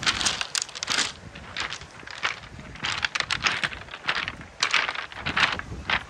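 Footsteps crunching on a pebble beach: rounded stones clattering and grinding underfoot at a walking pace.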